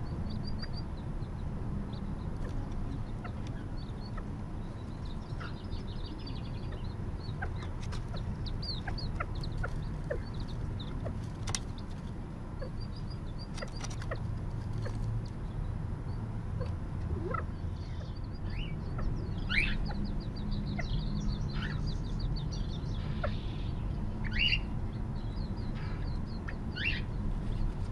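California quail chicks peeping: short, high calls in quick runs, scattered through and busier in the second half, with a few louder falling calls near the end, over a steady low background rumble.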